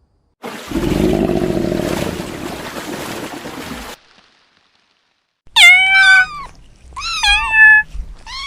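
A lion's long, rough roar lasting about three and a half seconds. After a pause, a domestic cat meows three times, loud high cries that fall and waver in pitch.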